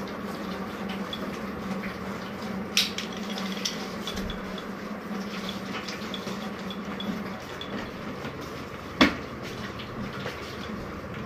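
Puppies eating from small bowls on a tile floor, the bowls clinking and scraping under their muzzles, with two sharp knocks of a bowl, about three seconds in and near nine seconds in, the second the louder. A low steady hum runs underneath.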